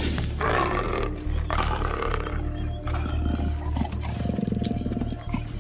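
Leopard snarling and growling in repeated harsh outbursts, really angry at being struck by a drug dart, over a steady music bed.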